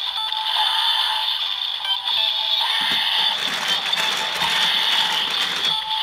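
Electronic transformation standby music from a DX Build Driver toy belt with a Cross-Z Dragon gadget docked: a synthesized looping tune that repeats about every two seconds. A rougher, noisier layer joins about halfway through and stops just before the end.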